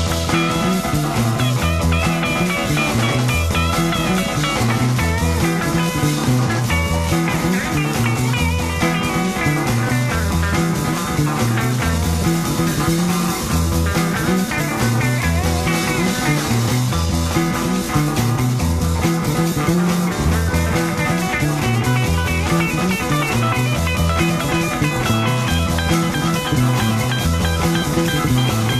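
Instrumental break of a late-1960s psychedelic rock song: guitar playing over a repeating bass line.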